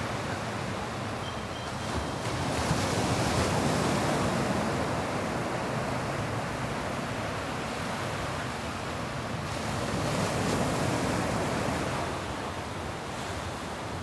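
Small sea waves breaking and washing up a sandy beach, a steady wash that swells louder twice as waves come in.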